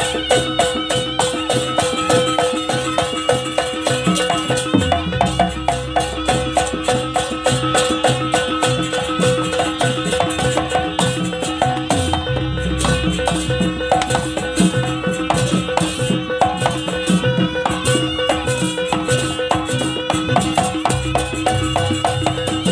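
Live Javanese jaranan gamelan music of the Banyuwangi style: fast, dense percussion strikes over steady held metallic tones and a shifting melody line, with the low drumming changing pattern a few times.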